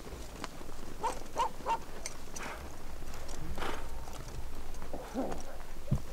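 Short, high animal calls, three in quick succession about a second in, then a few more scattered ones, over a steady low rumble of wind.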